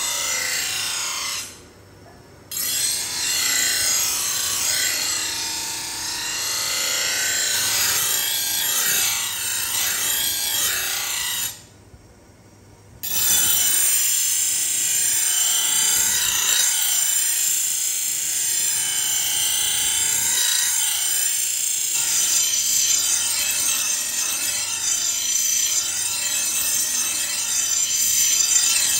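Carbon-steel cleaver blade, cut from a truck leaf spring, ground against a spinning grinding wheel: a steady, mostly high-pitched grinding hiss of steel on abrasive. It breaks off briefly twice, near the start and about halfway through.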